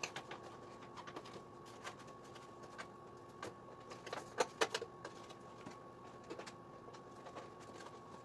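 Scattered light clicks and knocks of a moped's wiring harness and plastic connectors being handled, with a cluster of sharper clicks about four seconds in, over a faint steady tone.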